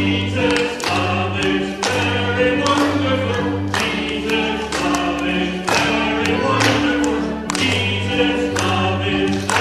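Group of voices singing a song over instrumental accompaniment with sustained bass notes and a steady beat.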